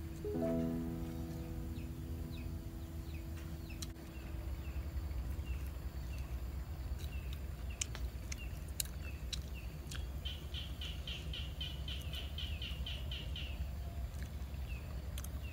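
Small birds chirping again and again. About ten seconds in comes a quick run of about six chirps a second lasting three seconds, all over a steady low rumble.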